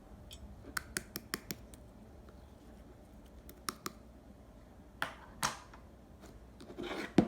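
Clear pearl slime being worked by hand: a quick run of sharp sticky clicks and pops, two longer squelches about five seconds in, and a crackling squish ending in a loud pop near the end.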